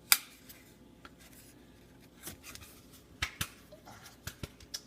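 Magnetic card holder snapping shut on a trading card: one sharp snap at the start, then several lighter plastic clicks and rustles as the holder is handled.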